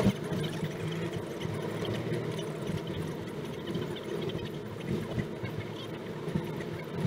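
Steady car engine and road noise heard inside the cabin, picked up by a dashcam's built-in microphone while driving.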